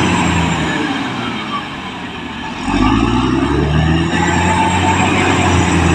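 Caterpillar D6R XL bulldozer's diesel engine working, easing off for a moment and then revving back up, the pitch rising about three seconds in before it runs steady again.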